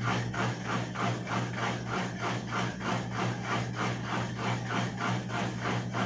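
EASY 17 kg top-load washing machine on its spin setting, failing to spin: the motor hums steadily under a rhythmic noise that repeats about four times a second. The motor sounds bound up ('amarrado'), which the repairer traces to heavy rust inside the motor.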